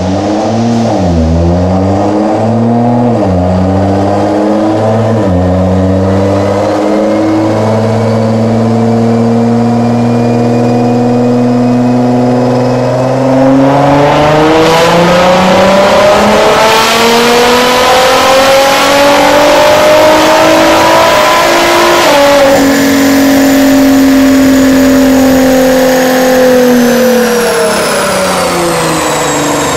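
Nissan GT-R R35's twin-turbo 3.8-litre V6 running on an all-wheel-drive chassis dyno: a few short revs, a steady hold, then a long full-throttle pull with the pitch climbing for about nine seconds. The pitch drops abruptly about two-thirds through, holds briefly, then the engine winds down near the end with a high whistle falling away.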